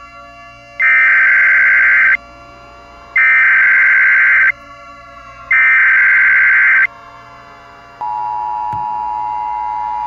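Emergency Alert System SAME header: three loud bursts of digital data tones, each a little over a second long with short gaps between them. Near the end, the steady two-tone EAS attention signal begins, which announces the tornado warning.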